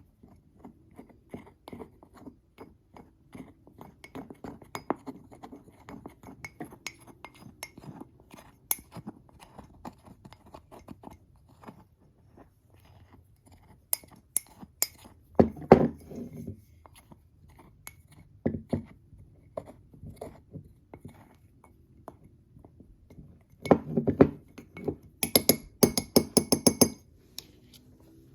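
A spoon stirring dry cake mix in a mug, clinking and scraping rapidly against the sides. Then come scattered louder knocks, and near the end a quick run of ringing clinks.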